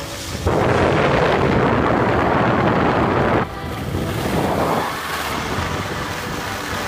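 Skis scraping over packed snow: a loud rushing scrape that starts about half a second in and cuts off abruptly a few seconds later, then a quieter scrape for a second or so.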